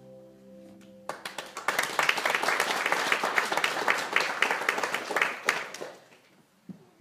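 A held closing chord of music ends about a second in, and an audience breaks into applause, clapping hard for several seconds before it dies away near the end.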